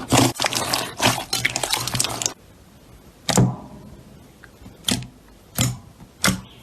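Slime being squeezed and pressed by hand: a dense run of crackling and popping for about two seconds, then four separate sharp pops.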